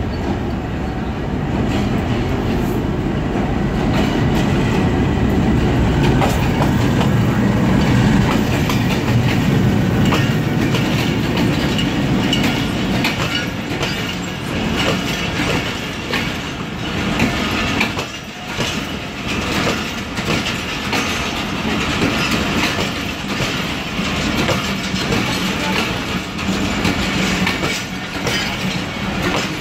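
Passenger train rolling past on the adjacent track, its wheels clattering over the rail joints and its coaches rattling. A deep rumble is strongest for about the first dozen seconds and then eases, while the clatter goes on.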